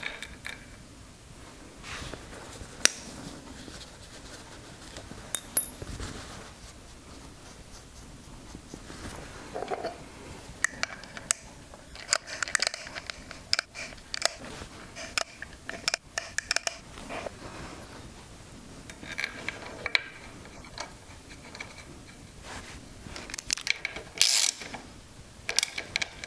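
Hand tools clicking and scraping on metal fittings of a motorcycle engine: scattered sharp metallic clicks and light scrapes, with quick clusters of clicks about halfway through and again near the end.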